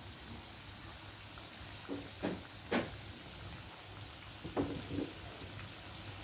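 Purple yam dough sticks deep-frying in a pan of hot oil, giving a steady sizzle, with a few short knocks about two to three seconds in and again near five seconds.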